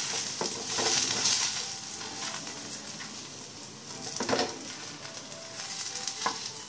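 Ghee sizzling on a hot iron tawa under a paratha, loudest about a second in. A steel spoon spreading the ghee scrapes and taps on the bread now and then.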